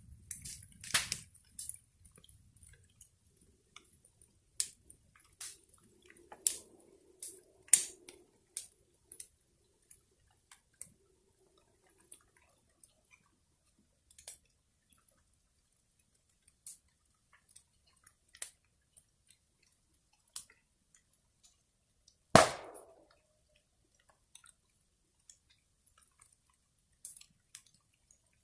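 Wood fire crackling: scattered sharp snaps and pops, with one much louder pop about three-quarters of the way in.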